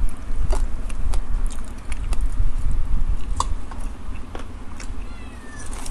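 Eating sounds close to the microphone: chewing, with scattered sharp clicks of a metal fork and spoon against a bowl, over a steady low rumble. A brief high chirp sounds near the end.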